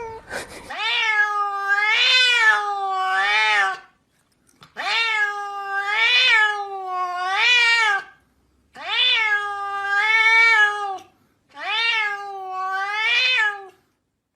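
A cat meowing in four long, drawn-out calls in a row, each two to three seconds long and wavering up and down in pitch.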